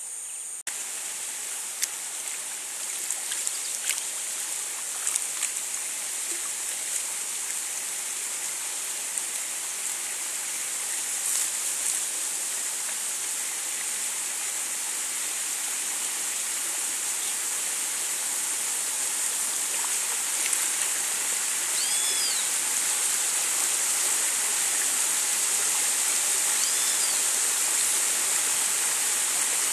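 Water rushing over a small rapid in a shallow creek, a steady rush that grows slowly louder as the kayak approaches it. A few light knocks sound in the first several seconds, and two short high chirps come in the last third.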